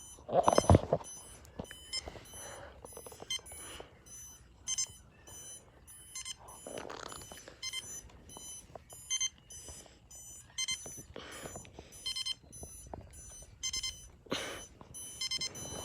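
Digital alarm clock's alarm going off: high-pitched electronic beeps repeating in quick groups, with a knock about half a second in.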